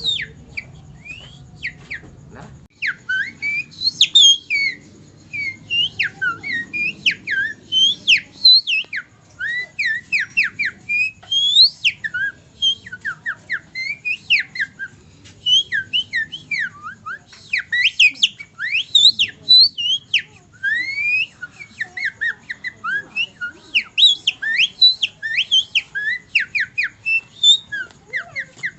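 A man whistling a rapid imitation of songbird song: many short, sharply sweeping whistles, mostly rising steeply, several a second and varied in pitch, starting about three seconds in.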